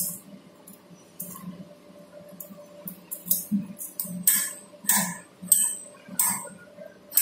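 Irregular sharp clicks, clinks and rustles as a strip of laminated film is handled and clamped into the metal screw grips of a tensile tester, louder in the second half. A steady faint electrical hum runs underneath.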